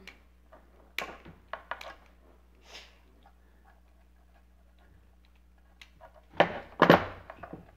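Irregular small clicks and taps of pliers working on the plastic mechanism of a stuffed animatronic toy, with a louder rustling clatter of handling a little over six seconds in.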